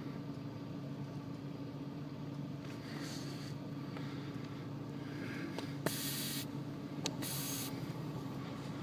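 Steady idle hum of the car's engine, with short bursts of hissing, the loudest about six seconds in and another just after a sharp click about a second later: brake booster vacuum escaping past a poor seal where the gray pushrod boot meets the booster.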